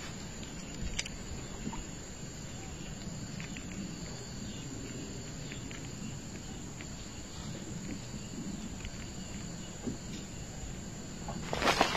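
Steady outdoor pond ambience with faint insect chirping and a few soft ticks. A sudden louder, noisy burst starts just before the end.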